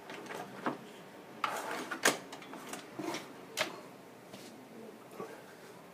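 Light clicks and knocks of hard parts or tools being handled and set down on a work surface, about half a dozen separate strikes with the loudest around two seconds in.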